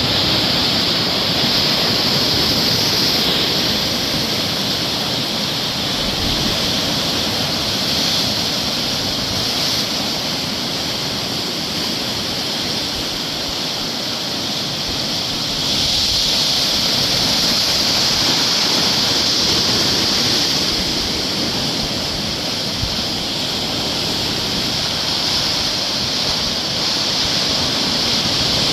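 Sea waves breaking and washing onto a beach: a continuous rushing surf that swells and eases every few seconds.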